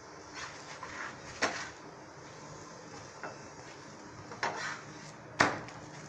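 A flat spatula scraping and knocking against a tawa griddle as a stuffed paratha is pressed and turned on it: about six short sharp scrapes spread a second or so apart, the loudest near the end.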